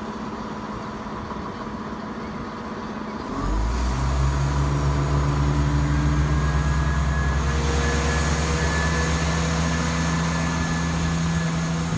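Diesel multiple unit at the platform: its engines throttle up about three and a half seconds in and settle into a steady, louder drone as the train pulls away, with a faint high whine rising over it.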